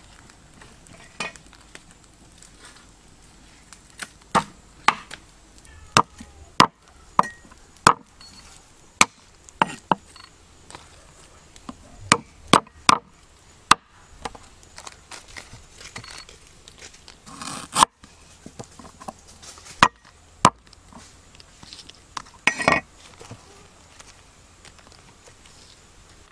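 Cleaver chopping on a round wooden chopping board, cutting garlic and lemongrass: single sharp knocks at uneven intervals, some close together and some more than a second apart.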